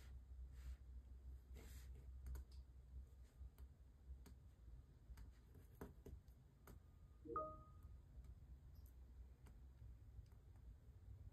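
Faint, scattered clicks and taps of a diamond-painting drill pen picking up drills and pressing them onto the canvas, over a low hum. About seven seconds in there is one brief pitched ding.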